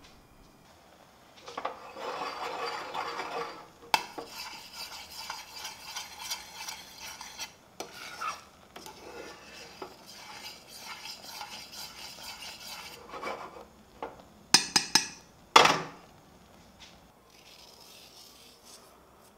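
Metal spoon stirring and scraping thick persimmon jam in a saucepan, in bursts with short pauses, then a few sharp clinks of metal on the pan about fifteen seconds in.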